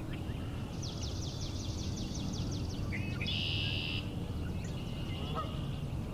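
Birdsong outdoors: a rapid run of high repeated notes, then about three seconds in a short note followed by a loud buzzy trill, typical of a red-winged blackbird's song. Geese call faintly in the background over a steady low rumble.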